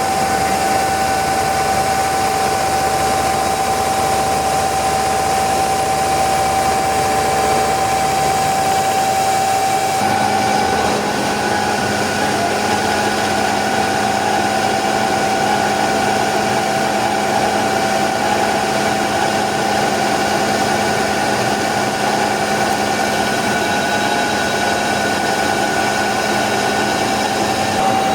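CNC milling machine running, with a steady spindle whine over a dense rushing noise. The sound changes abruptly about ten seconds in.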